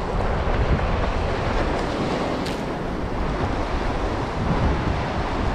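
Surf washing onto a beach, a steady noisy rush, with wind buffeting the microphone as a fluctuating low rumble.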